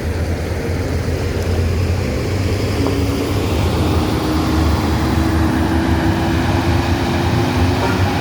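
Bus engine running close by, a steady low rumble, with a faint tone slowly rising in pitch from about three seconds in as the engine speeds up.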